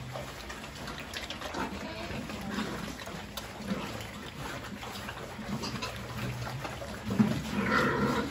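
A group of pigs eating from a trough: constant wet slurping and chomping, with a louder pig call near the end.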